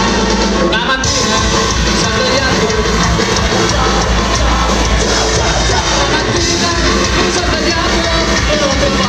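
Ska-punk band playing live and loud, a singer's voice over electric guitars and drums.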